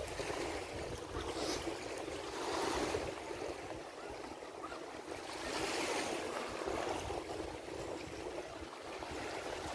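Small Adriatic waves washing onto a sandy beach, a steady rush of surf that swells twice, about three seconds in and again around six seconds in.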